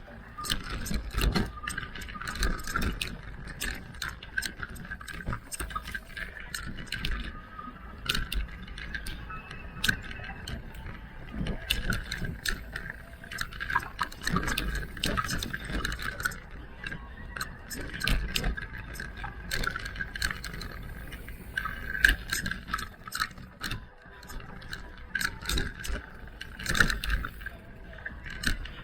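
Electric mountain bike ridden over a rough trail: constant rattling and sharp knocks from the bike over bumps, a steady high whine, and low wind rumble on the microphone.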